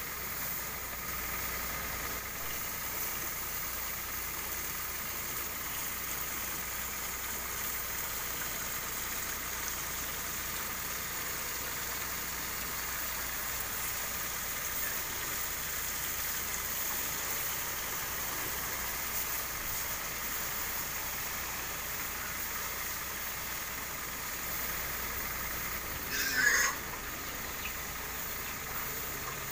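Kawasaki power sprayer running steadily, a constant engine-and-pump note with a high spray hiss. A pig gives one brief, loud squeal near the end.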